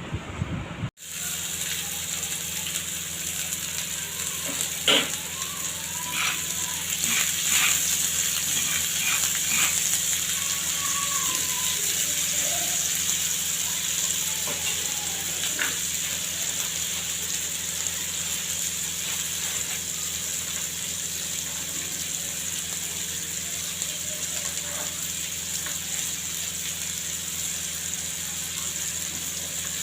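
Steady sizzle of food frying in hot oil in a pan, with a few light clinks of a utensil between about five and sixteen seconds in.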